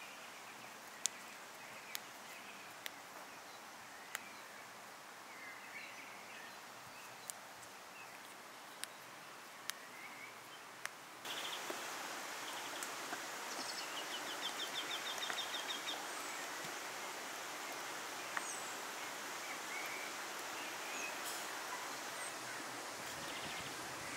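Outdoor countryside ambience with birds chirping and singing. Scattered sharp clicks through the first half; about eleven seconds in the background hiss suddenly becomes louder and stays steady, and a bird gives a rapid trill soon after.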